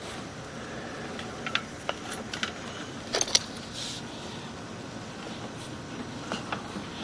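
Sewer inspection camera and its push cable being fed into a sewer line: scattered sharp clicks and knocks over a steady hiss, the knocks clustered in the first half.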